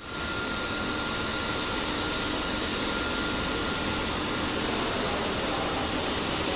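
Steady hum and fan-like noise of running workshop machinery, with a faint high whine that fades out about halfway through.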